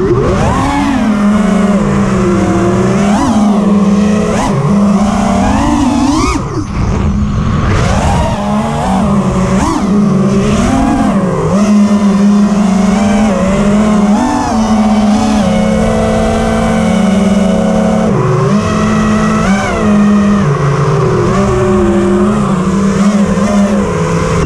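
FPV quadcopter's brushless motors and propellers whining in flight, the pitch rising and falling over and over as the throttle changes.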